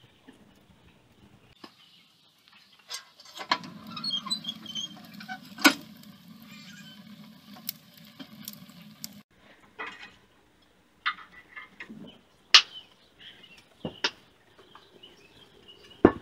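Wood fire burning in a cast-iron pot-belly stove: a low rush with sharp crackles and pops for about five seconds, then scattered clicks and knocks.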